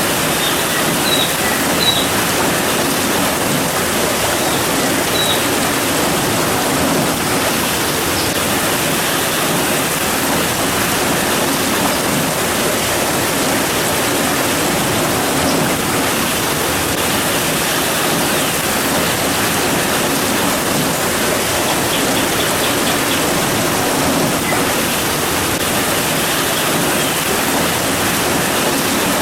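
Steady rain falling, an even hiss with no letup. A few faint high chirps come in the first few seconds, and a short quick run of them about three-quarters of the way through.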